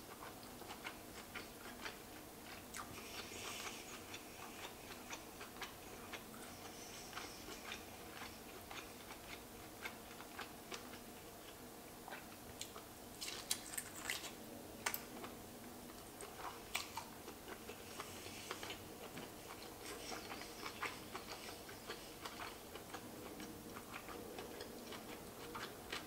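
Close-miked eating sounds: chewing lobster meat, with scattered small clicks and crackles throughout and a cluster of sharper clicks about halfway through.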